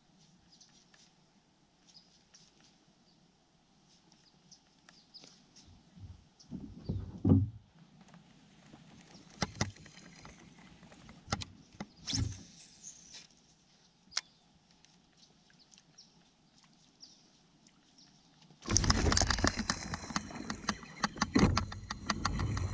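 Baitcasting rod and reel worked from a kayak: mostly quiet, with scattered small clicks and knocks and short louder sounds about seven and twelve seconds in, the second with a cast. From about nineteen seconds a much louder run of rapid clicking and noise sets in while the reel is being wound.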